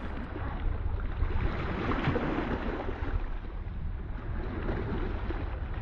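Wind buffeting the microphone over open water, with water washing around a kayak; it cuts off suddenly near the end.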